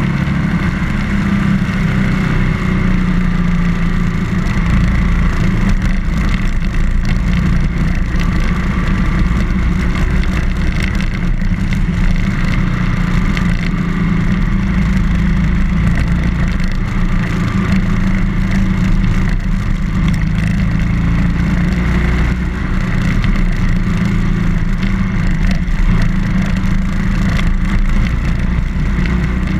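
BMW R1200GS motorcycle's flat-twin boxer engine running while riding, a steady drone whose pitch shifts a little as the speed changes.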